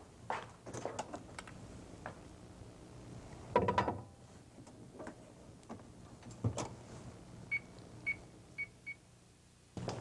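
Knocks and a clunk as a covered dish is put into a microwave oven and the door is shut, then four short beeps from the oven's keypad as the cooking time is set.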